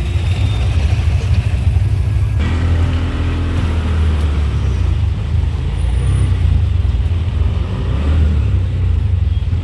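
Engine and road rumble of a small motor vehicle, heard while riding in it through city traffic. The rumble is deep and steady, and the sound changes abruptly about two and a half seconds in, after which a steady engine hum stands out.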